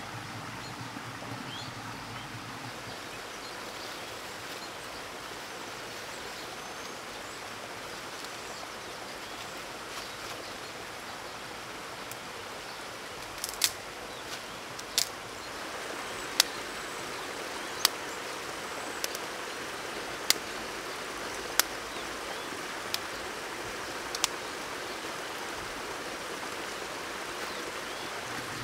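Forest creek trickling and babbling steadily. From about halfway in, a string of nine sharp wooden clicks and snaps, roughly one every second and a bit, as dry sticks and kindling are laid for a fire.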